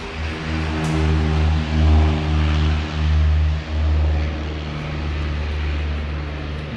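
A steady, low mechanical drone like a running engine or motor, swelling and dipping a few times in the first four seconds before settling to an even hum.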